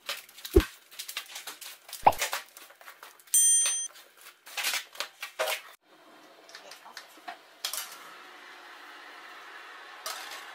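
Metal tongs clicking and clattering against a metal baking tray as chopped vegetables are tossed in oil. Near the end an oven door opens with a steady hum and the tray is slid in with a few knocks.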